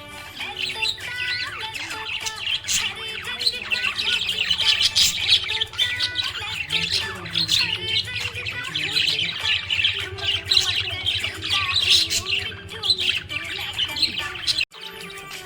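Budgerigars chirping and warbling continuously in rapid, dense chatter, with occasional harsher squawks. The sound cuts out abruptly for a moment near the end.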